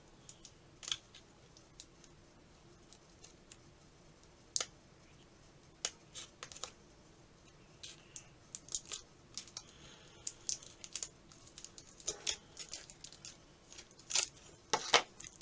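Fingers picking at and peeling tape off small packaged accessories: scattered light clicks, scratches and crinkles with quiet gaps between, busiest in the second half.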